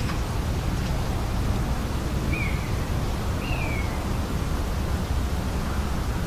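Steady low rumble and hiss of outdoor background noise, with two short falling bird calls, one about two and a half seconds in and one about a second later.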